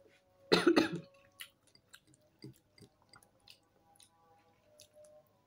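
Close-miked chewing and wet mouth clicks from someone eating fried tilapia and rice by hand, with one loud, brief burst about half a second in.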